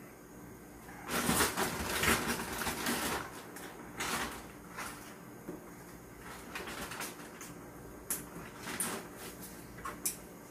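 Plastic sauce packet crinkling for about two seconds, followed by a few shorter rustles and light clicks as things are handled on the table.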